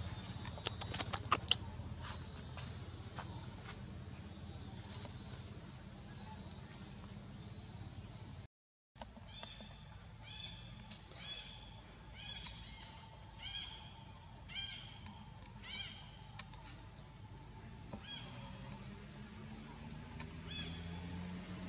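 Forest ambience with a steady high insect drone and a few sharp clicks about a second in, then a short cut to silence. After that a bird calls about eight times in an even series, roughly one harsh call every three-quarters of a second.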